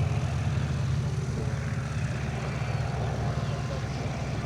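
Piston-engined propeller aircraft running with a steady low drone, fading slightly as it moves off.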